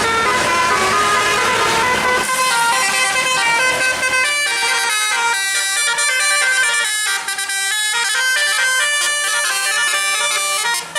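Bus 'telolet' musical airhorn playing a quick tune of short notes that step up and down in pitch. A noisy rumble sits under the first two seconds, then the horn notes ring out clean.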